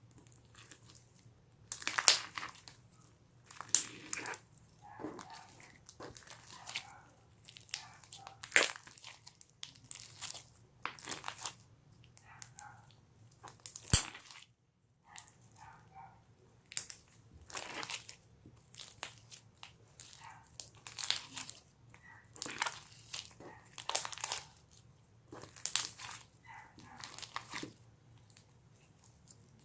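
Handmade clear slime with toppings being squished and pressed by hand, giving sharp crackling, crunching pops roughly every second or two.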